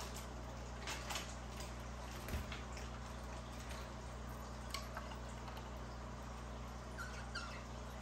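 A budgerigar making a few faint, short chirps and clicks, spread out with gaps, over a steady low hum.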